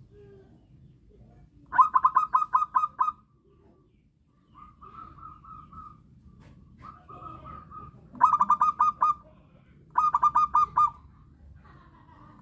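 Zebra dove (perkutut) cooing in its staccato song: phrases of rapid, evenly spaced notes. Four loud phrases are separated by short pauses, with softer trilled phrases between the first two.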